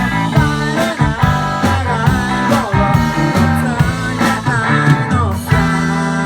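Rock music led by guitar, with notes bending up and down, settling into held notes near the end.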